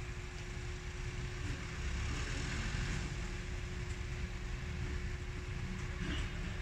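Outdoor street ambience in falling snow: wind buffeting the microphone with a fluttering low rumble, under a steady low hum. A swell of hiss rises and fades about two to three seconds in.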